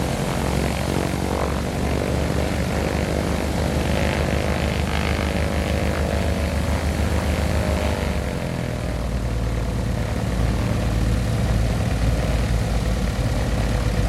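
Cessna 310's six-cylinder Continental piston engine running on the ground, with the propeller turning, after years of sitting. About eight seconds in the engine speed drops and it settles into steady lower running.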